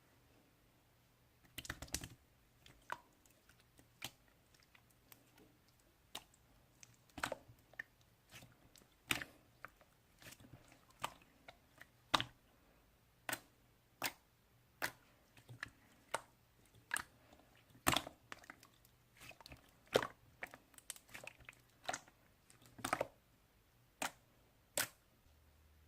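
Slime being played with by hand, giving sharp clicking pops, irregular, roughly one a second with some quick clusters.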